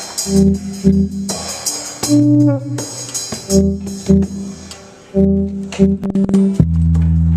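Live band instruments played in a sound check: short, stop-start low bass notes with bright crashes, a sliding note just after two seconds, and one long held low note near the end.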